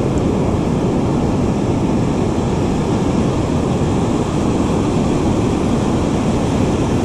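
Steady rush of breaking surf with wind rumbling on the microphone.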